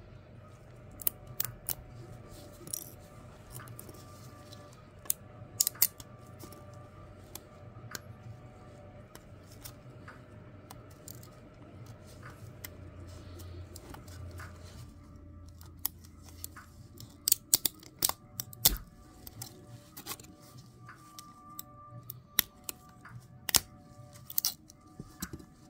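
PLA 3D-print support material snapping and crackling as it is pried off the print by hand: sharp clicks scattered throughout, coming thickest in quick clusters about 17 to 19 seconds and 22 to 24 seconds in. Quiet lo-fi background music runs underneath.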